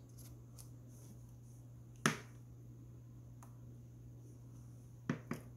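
Light clicks and taps from hands adjusting paper cupcake liners in a metal muffin tin: one sharp click about two seconds in, a few fainter taps around it and two more near the end, over a faint steady low hum.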